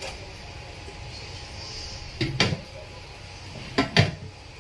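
Kitchenware knocks: a steel plate clatters onto the wire steaming rack inside a wok about two seconds in, then the wok's glass lid clinks down into place near the end, setting the fish to steam.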